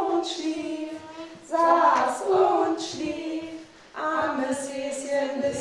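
A woman singing a song, with young children's voices joining in, unaccompanied, in phrases with two short breaks.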